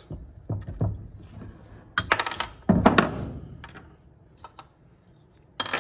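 Screwdriver prying the screen out of a Kia/Hyundai balance shaft oil pump housing: light metallic clicks, then sharper clatters about two and three seconds in as it comes free, followed by a few small ticks and a knock near the end.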